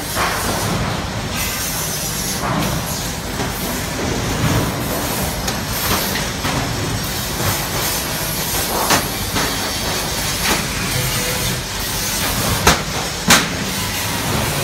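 Sheet-steel filing-cabinet panels being fitted by hand: scattered metallic knocks and rattles over steady background noise, with two sharper knocks near the end.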